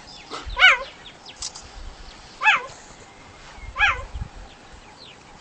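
Cheetah chirping: three short, high, bird-like chirps, each rising and then falling in pitch, spaced one to two seconds apart.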